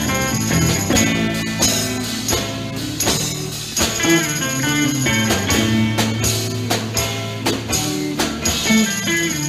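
Rock band playing live: guitar lines over a bass line and steady drum-kit beats, with no singing.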